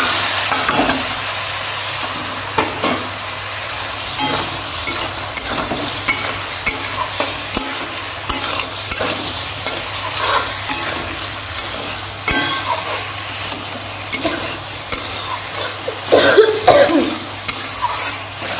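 Boiled peas and potato cubes sizzling in hot oil and fried spice paste in a metal karahi, while a spatula scrapes and clicks against the pan as they are stirred in to coat them in the masala. The clicks come thick and fast, with a louder flurry about sixteen seconds in.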